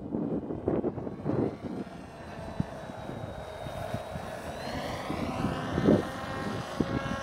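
Small electric flying wing's motor and propeller in flight, a thin steady whine whose pitch drifts slowly up and down, over low rumbling wind noise on the microphone.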